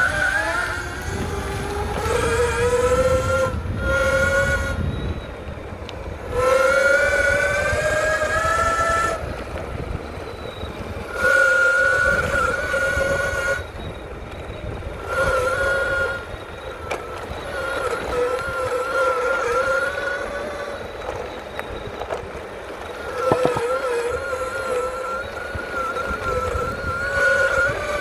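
SYL-08 V3 electric mountainboard's motors whining under power, in several stretches of a few seconds each: the pitch rises as the board accelerates, wavers, then drops away between pulls. A low rumble runs underneath.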